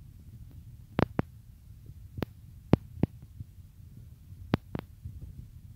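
Footsteps of shoes on a hard floor close to a floor-level microphone: about seven sharp clicks at uneven spacing, some in quick pairs, over a low steady rumble.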